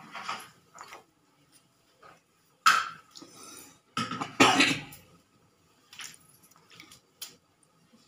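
Rose-ringed parakeet bathing in a shallow steel plate of water, splashing in short bursts. The two loudest splashes come at about three seconds and about four and a half seconds, with softer ones before and after.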